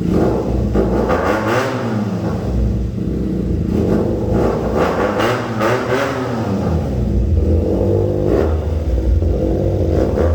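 Benelli motorcycle engine breathing through an aftermarket SC-Project exhaust, revved again and again in throttle blips that rise and fall in pitch, with a heavy, bassy note.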